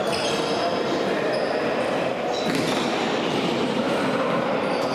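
Steady, reverberant sports-hall noise during a tchoukball game, with a couple of thuds of the ball about two seconds apart.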